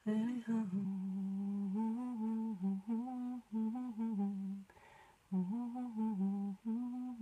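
A woman humming a tune: held notes stepping up and down, with a short break a little past halfway.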